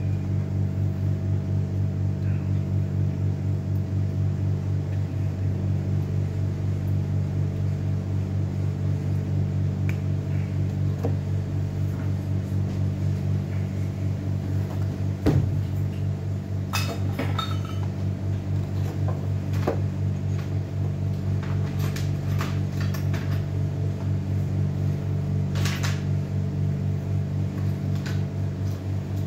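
A steady low machine hum with an even, regular pulse. Scattered light clicks and taps of small parts and wires being handled on a bench sit over it, the loudest a single knock about halfway through.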